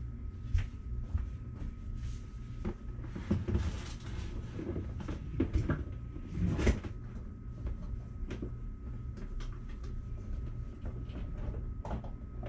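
Scattered knocks and clatter of soap-making things being handled and set down on a countertop, the loudest a little past the middle, over a steady low hum.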